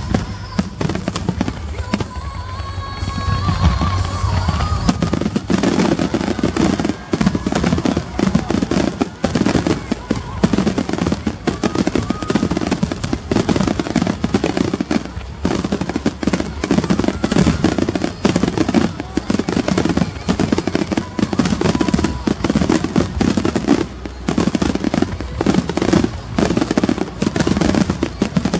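Fireworks going off in a rapid, dense barrage of bangs and crackles, thickening from about five seconds in and continuing without a break.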